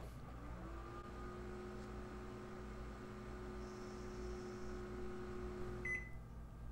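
Microwave oven running with a steady hum, which stops near the end with a short high beep.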